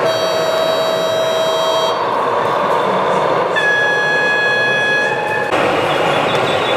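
A model locomotive's horn sounds twice over a steady noisy background. First comes a lower held tone of about two seconds, then, after a short gap, a higher held tone of about two seconds. The background changes abruptly about five and a half seconds in.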